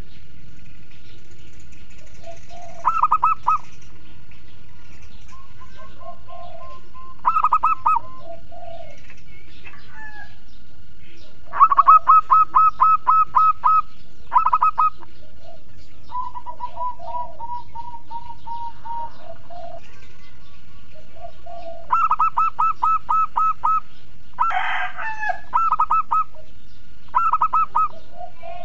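Zebra dove (perkutut) cooing: short phrases of rapid, rolling staccato notes, repeated every few seconds. The longest and loudest run of notes comes about twelve seconds in. Fainter, lower bird calls sound between the phrases.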